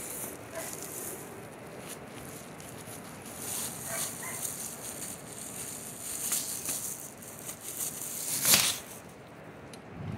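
Plastic bubble wrap rustling and crinkling as it is pulled off a pair of motorcycle-style coil-over shocks, with scattered crackles and one louder rustle about eight and a half seconds in.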